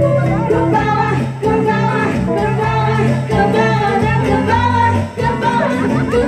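A woman singing into a microphone over amplified backing music with a steady bass line.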